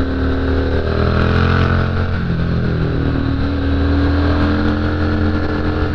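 Triumph Street Scrambler's 900 cc parallel-twin engine running under way on a twisty road, its note dipping and rising slightly with the throttle, over wind rush.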